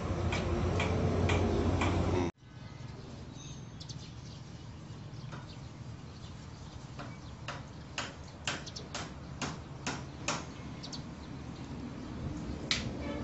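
A low steady hum that cuts off abruptly about two seconds in, then quiet outdoor ambience with a run of about ten short sharp ticks, about two a second, bunched in the middle stretch.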